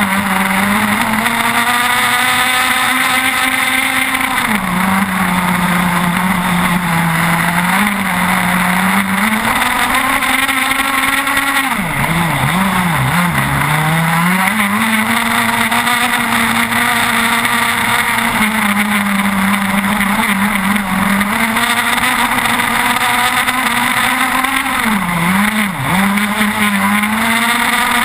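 30cc two-stroke petrol engine of an RC racing catamaran, fitted with a tuned exhaust pipe, running at high revs close up. Its pitch drops and climbs back twice, about twelve seconds in and again near the end.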